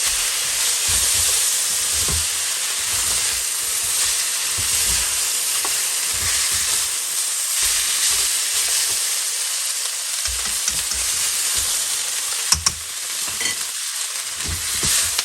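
Soy-sauced fried noodles sizzling in a hot pan while being stir-fried and tossed, with steady hissing and the scrape and thud of the utensil; the sauce is making the noodles catch on the pan. Two sharp clicks sound near the end.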